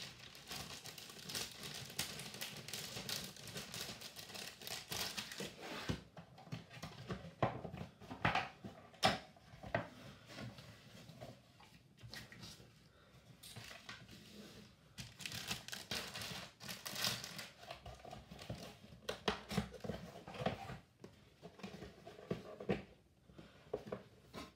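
Clear plastic bags of plastic model-kit parts crinkling and rustling as they are handled and packed away, densely for the first six seconds and then in shorter bursts. Scattered sharp knocks from the cardboard kit box come through.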